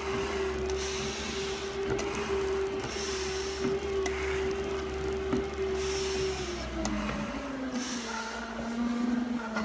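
Stair-climber machine's motor running with a steady whine that slides down to a lower pitch about two-thirds of the way through, as the machine slows. Over it, a firefighter's SCBA mask hisses with each breath, about every two seconds.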